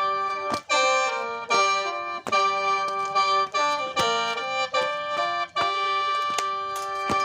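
Khaen, the Isan/Lao bamboo free-reed mouth organ, being played: a held drone note under a moving melody, in phrases separated by short breaks.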